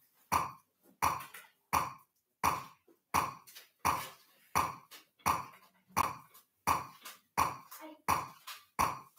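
Metronome clicking steadily at about 86 beats a minute.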